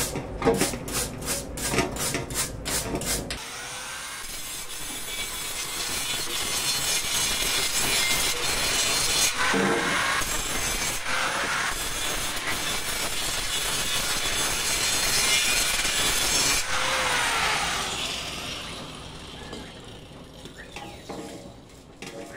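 A hand wire brush scrubs a fresh weld on a thin aluminium tube in quick, even strokes. About three seconds in, an electric angle grinder starts and grinds the weld bead with a loud, steady grinding noise for about thirteen seconds. It then winds down, falling in pitch, and fades out.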